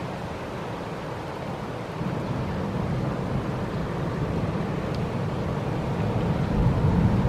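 Uneven low rumble of wind buffeting the microphone, stronger from about two seconds in and gustier near the end, with the departing passenger ferry's engines running faintly beneath it.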